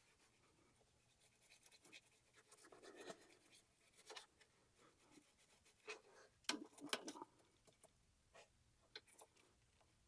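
Faint scratching and rubbing of hand-scrubbing inside a 2.4 Ecotec throttle body wet with carburetor cleaner, working off carbon buildup, with scattered light clicks and taps. A cluster of sharper taps comes about six to seven seconds in.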